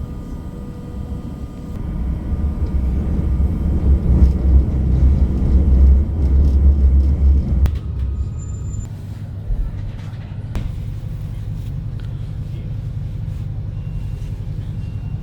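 Passenger train running, heard from inside the carriage: a low rumble that swells for a few seconds, then settles to a steadier, quieter run about eight seconds in.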